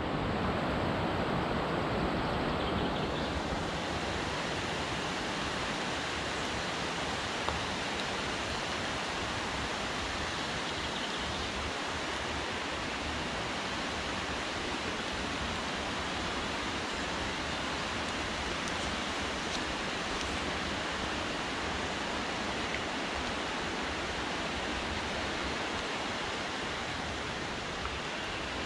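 Steady, even rushing of a forest river and its waterfalls.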